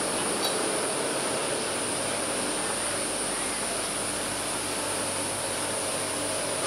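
Steady mechanical drone of the Maokong Gondola's station machinery and haul rope running over the sheaves, with a faint hum and a constant high hiss throughout.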